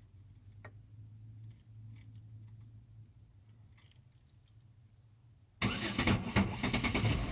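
A vehicle's engine cranked and started by hotwiring: the starter is fed by touching the ignition-power wire to the start wire, bypassing the ignition switch. A faint low hum comes first, then about five and a half seconds in the engine cranks with a fluttering sound, catches and runs loudly.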